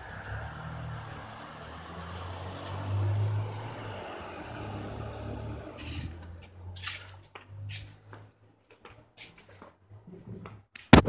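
A low engine hum, like a motor vehicle running, swelling about three seconds in and fading after about six seconds. Then come scattered short knocks and one loud bump near the end.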